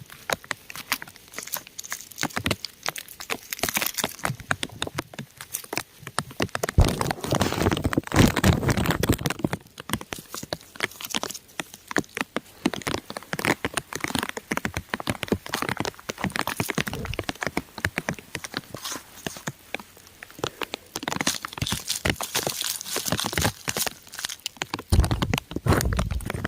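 Rain pattering on crumbling rock: dense, irregular drop impacts ticking and crackling. A louder, deeper spell comes about seven to nine seconds in, and again near the end.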